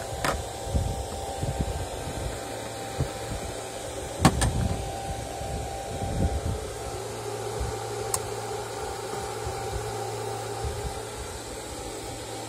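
Steady whir of the cooling fans on the station's radio amplifier and power-supply units. A low hum comes in about halfway through, and a few sharp clicks stand out above it.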